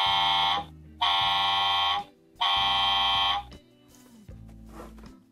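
A toy fire engine's electronic horn sound effect through its small speaker: three long, steady horn blasts of about a second each, the first already sounding at the start, over a low steady hum. It goes quieter after about three and a half seconds.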